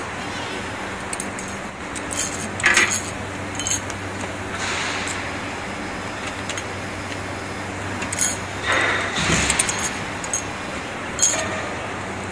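Injection molding machine running with a steady hum. Over it come scattered clinks and light knocks as moulded plastic lamp cup shells are handled at the open mold, with one duller knock about nine seconds in.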